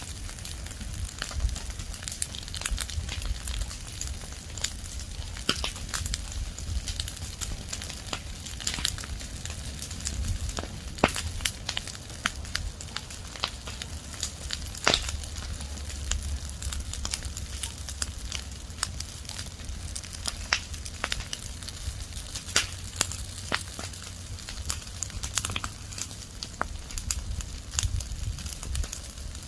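Fire of dry leaves and branches burning, crackling and popping at irregular intervals over a steady low rumble.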